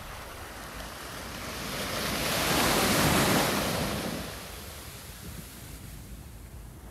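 Ocean surf: a single wave breaks and washes up the beach, swelling to a peak about halfway through and then falling away, over a steady low rumble of wind on the microphone.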